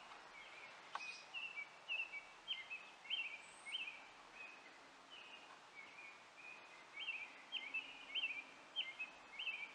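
A bird chirping over and over, short high notes about twice a second, over a faint steady outdoor hiss.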